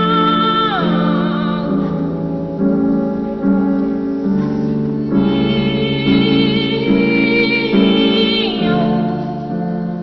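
Music: sustained chords under a high melody line with vibrato that slides down in pitch twice, about a second in and again near the end, easing off slightly at the close.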